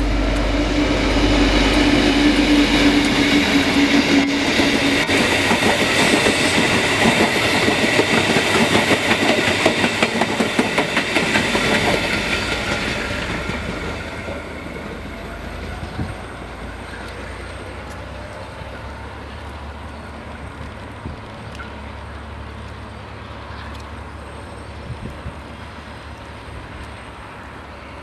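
KiwiRail diesel locomotive and passenger carriages passing close by. A steady engine drone at first gives way to the carriages' wheels clicking rhythmically over the track. About halfway through it fades to a low rumble as the train moves away.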